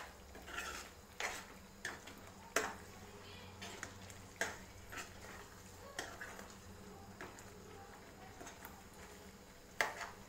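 Metal spoon scraping and knocking against a steel pan while stirring a thick spinach-and-potato curry: irregular taps and scrapes, about one every half second to a second, thinning out after the first few seconds.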